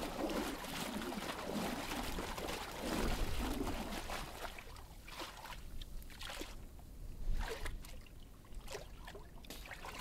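Water sloshing and trickling in an open seal hole in the sea ice, with scattered small clicks and crackles through the second half.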